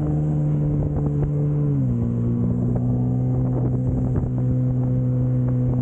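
Jet ski engine running at speed with a steady drone; its pitch drops a step about two seconds in and then holds. Wind buffets the microphone.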